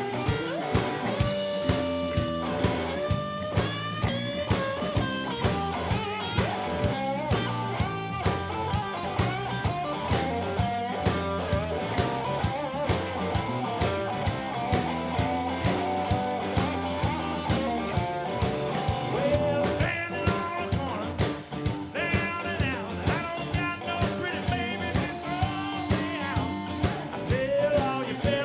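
Blues band playing live: electric guitar over a steady drum-kit beat, with a man singing in places.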